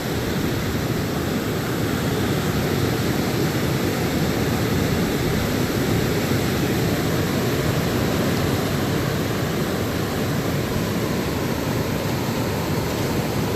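Steady rushing of river water flowing over rapids, an even, unbroken hiss.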